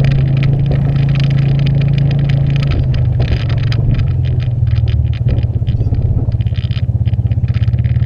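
Aluminium boat on its trailer being towed over a gravel road: a steady low engine drone from the towing vehicle, with the rumble and rattle of the hull and trailer on the gravel. The engine note drops slightly about three seconds in, and the sound pulses unevenly in the second half.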